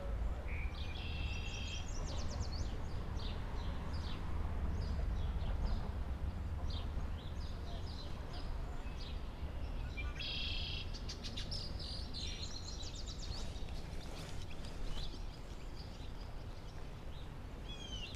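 Songbirds singing and chirping, with a buzzy trill about a second in and another about ten seconds in, over a steady low rumble.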